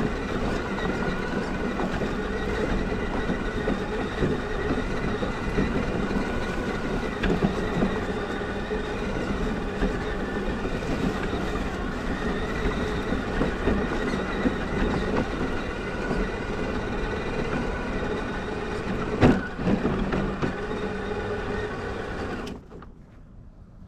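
Electric motor and geared drivetrain of a scale RC crawler, an Element Enduro Trail Runner, whining steadily as it drives the trail, picked up by a camera mounted on the truck. There is one sharp knock about 19 seconds in, and the drive sound cuts off near the end.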